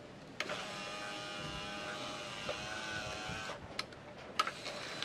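A 1997 Mitsubishi Lancer's power window motor, out of the door on its window regulator, runs with a steady whine as it drives the regulator carriage along the rail, and stops after about three seconds. Two sharp clicks follow. The motor turns again once its rusted, dirty commutator has been cleaned.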